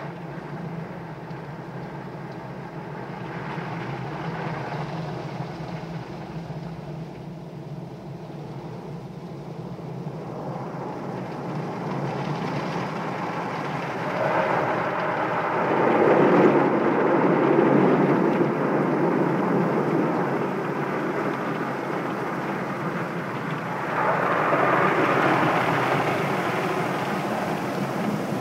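Automatic car wash heard from inside the car: water spray and cloth wash strips beating on the windshield and body in a steady rushing, which swells louder about halfway through and again near the end.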